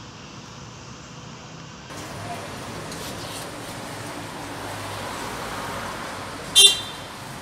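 Street sound as the tram approaches, then, inside the cabin of the vintage BKVT S-type tram no. 1820, steady running noise with one short, loud ring of the tram's bell near the end.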